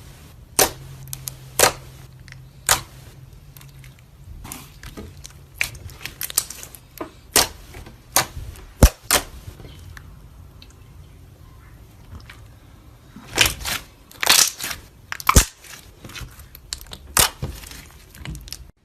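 Slime being squished and pressed by hand, giving irregular sharp pops and crackles, some in quick clusters, over a low steady hum.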